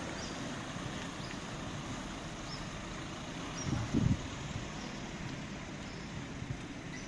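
Rainy street ambience: a steady hiss of rain and tyres on the wet road, with a brief low bump about four seconds in.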